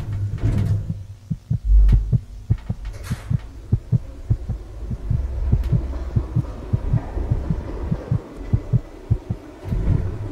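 Horror sound design: a low droning hum with one heavy low thud about two seconds in, followed by a fast, uneven run of dull thumps that stops shortly before the end.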